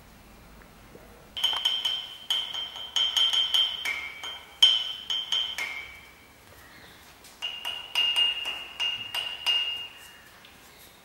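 Rapid, irregular clinks of hard objects, each ringing on at the same high pitch, in two spells of a few seconds with a short pause between.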